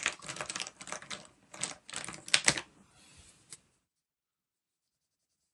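Plastic felt-tip pens and their caps clattering and clicking as they are picked through and handled, in quick irregular clicks, loudest about two and a half seconds in. The sound cuts off suddenly to dead silence a little under four seconds in.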